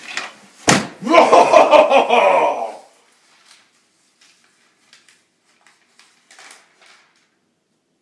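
A door slams shut, followed by a loud pitched sound lasting nearly two seconds whose pitch falls away. It then drops to faint scattered ticks and rustles.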